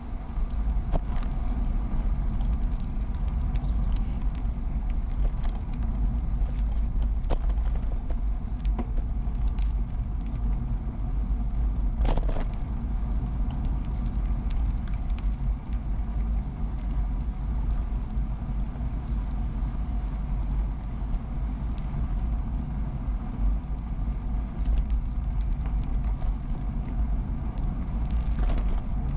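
Steady low rumble of riding a Peugeot UJ-10 ten-speed bicycle on the road: tyre and wind noise, with scattered light clicks and rattles and one sharper knock about twelve seconds in.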